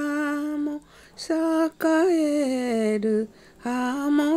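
Solo unaccompanied voice singing a Japanese folk song in long held notes. The first note breaks off just under a second in, and a phrase after a short pause slides downward before a new held note begins near the end.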